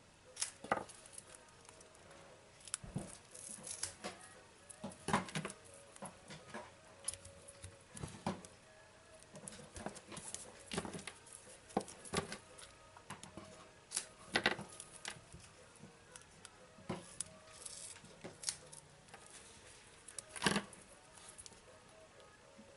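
Scissors snipping strips of foam adhesive tape, mixed with taps and rustles of small cardstock pieces handled on a table: irregular sharp snips and clicks, several of them loud.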